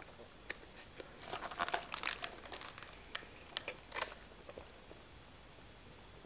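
Close-miked eating and drinking sounds: chewing and wet mouth clicks, with a dense cluster of crackly clicks a second or two in. A few sharp clicks follow around three to four seconds in, then quieter sips of Coke through a straw.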